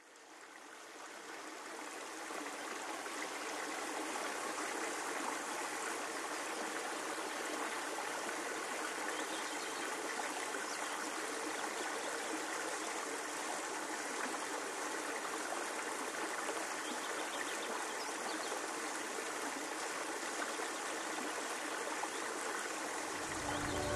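Steady rush of flowing river water, fading in over the first few seconds. Music begins to come in right at the end.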